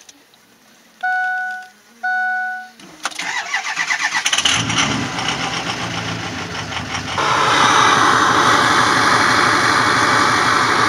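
Two dash chimes a second apart, then a Ford Super Duty's Power Stroke diesel cranks for about a second and starts, settling into a steady idle. From about seven seconds in it is louder, heard at the large exhaust tip.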